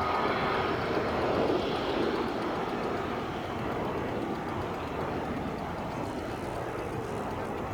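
Airliner engines running steadily, loudest about a second or two in and then easing off slightly.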